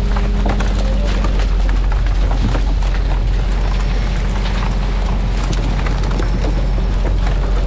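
Fishing boat's engine running with a steady deep rumble, under continual irregular splashing of water and short knocks.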